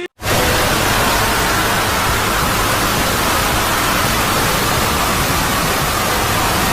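Loud steady hiss that covers all pitches evenly. It cuts in abruptly after a brief dropout just past the start.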